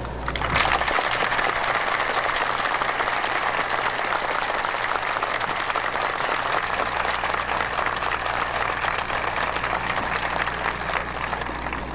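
A large crowd applauding: dense, steady clapping that starts within the first half second and thins out near the end.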